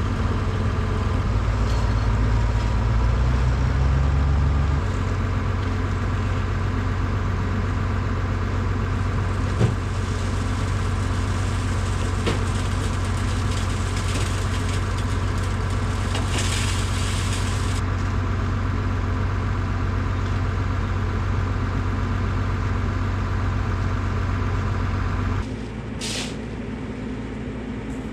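Skid steer's engine running steadily, revved higher for the first few seconds and then settling, with one sharp knock about ten seconds in. Near the end the sound drops suddenly to a quieter engine hum, followed by a few short hisses.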